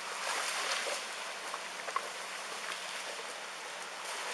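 Tsunami floodwater flowing, a steady rushing hiss with scattered small clicks and splashes.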